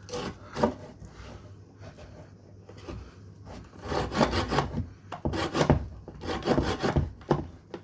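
Saw cutting through a log of wood: quick back-and-forth rasping strokes. There is a short run near the start and a busier stretch in the second half.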